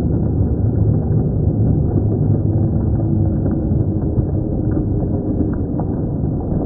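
Muffled, steady din of a crowd of spectators in an arena, with a few faint sharp knocks.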